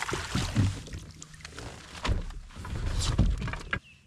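A hooked bass thrashing and splashing at the surface beside a fishing kayak as it is brought in, in loud bursts that cut off suddenly near the end.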